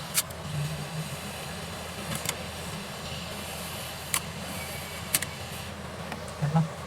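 Steady low hum with four sharp clicks spread across it.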